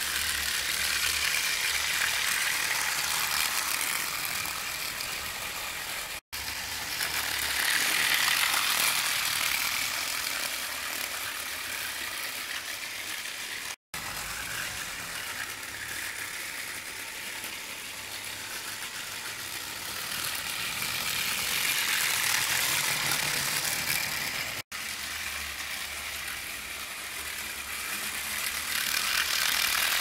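Battery-powered Plarail Advance E235 series toy train running on model track: its small motor and gears whir steadily with a light rattle, swelling louder three times as the train passes close by.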